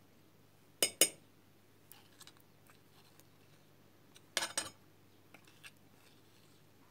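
A few sharp clicks and taps of kitchen utensils as honey is spooned into the pot: two close clicks about a second in, a cluster of clicks a little past the middle, and faint ticks between.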